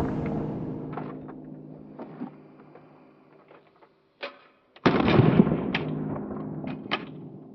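A sound-designed soundtrack: a low sustained drone fading away under a few sharp clicks, then a sudden loud boom-like hit about five seconds in that rings out slowly over the same drone.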